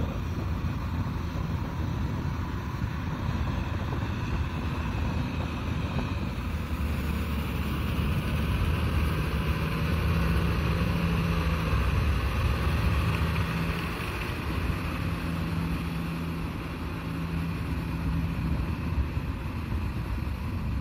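Farm tractor's diesel engine running steadily under load as its rotary tiller churns through wet paddy mud, a continuous drone that grows a little louder around the middle.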